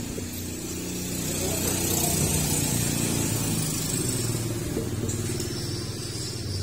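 A motor vehicle's engine running, growing louder about two seconds in and then easing off.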